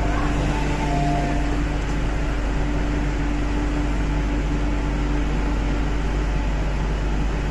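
Underground metro platform noise at an MTR station: a steady wash of train and ventilation noise. The last notes of a two-pitch alternating door chime end about a second and a half in, and a steady low hum fades out about six seconds in.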